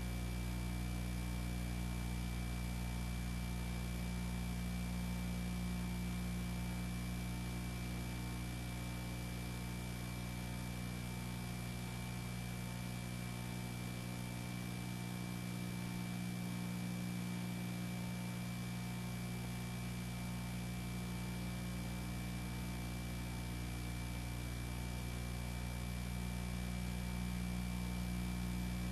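Steady electrical mains hum with a stack of low overtones, a thin steady high tone and an even hiss: the background noise of an old film-to-VHS transfer. No sound from the aircraft or the fuel truck is heard.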